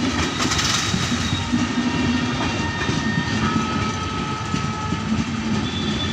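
Indore–New Delhi Superfast Express train running on the rails, a steady rumble with the wheels clattering over rail joints and a few faint, thin high tones above it.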